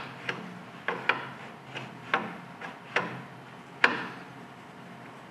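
Sharp, irregular metal clicks and knocks, about eight of them, as a steel push plate is worked on its round support bar to find where it slides in with the least tension. The last click, about four seconds in, is the loudest; after it the clicking stops.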